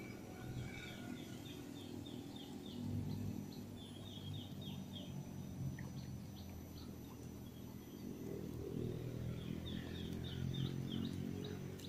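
A small bird singing in quick runs of short, falling chirps, about four runs in all, over a faint low rumble.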